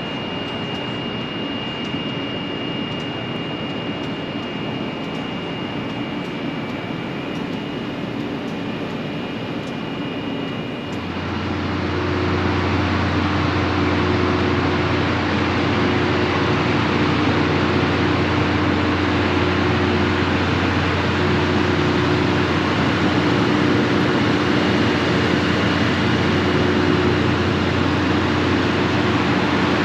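Steady drone of the parked LORAM rail grinder train's diesel engines running. About eleven seconds in it grows louder and a deep, steady hum comes in underneath.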